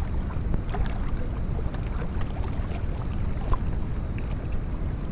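Wind rumbling on the microphone and small waves lapping against shoreline rocks, a steady noise with faint scattered ticks. A thin, steady high tone runs through it.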